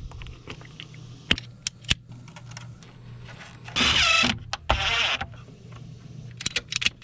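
An electric drill runs in two short bursts of whirring, each about half a second, a little after the middle, driving mounting screws for a fuel pump. Sharp clicks and knocks of handled tools and parts come before it and again near the end.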